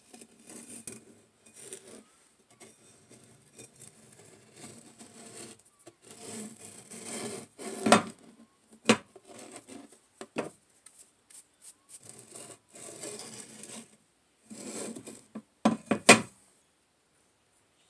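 Steel angle scraping oil-bonded casting sand across a wooden board in short rasping strokes. Several sharp knocks stand out: one about eight seconds in, another a second later, and the loudest pair near the end.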